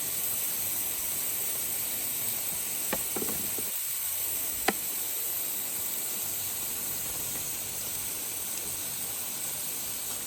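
A steady high hiss, with a few light clicks around three and five seconds in.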